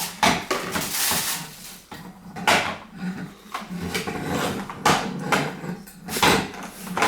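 Plastic vacuum-cleaner attachments and their packaging being handled: irregular clattering knocks and rustling.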